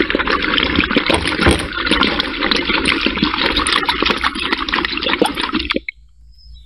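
Distilled water sloshing inside the cells of a 12-volt lead-acid car battery as it is rocked back and forth by hand, rinsing loose grime out of the cells. The sloshing stops abruptly about a second before the end.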